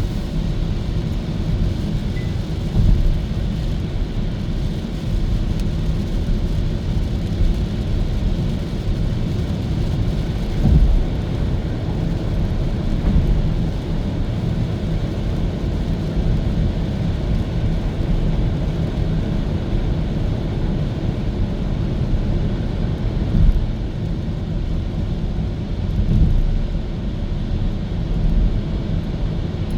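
Steady low road and tyre rumble of a Hyundai Kona Electric driving, with no engine note, and a few brief louder thumps.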